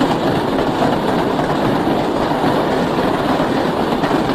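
American Flyer electric toy train running on its track: a steady rumbling clatter.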